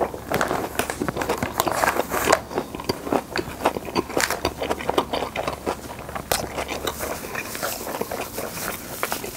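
Close-miked chewing of a mouthful of pepper japchae (stir-fried glass noodles with peppers): steady wet smacking with many small crackly clicks.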